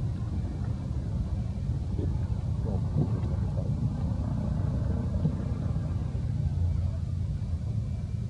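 A steady low rumble of outdoor background noise, with a faint, brief pitched sound about three seconds in.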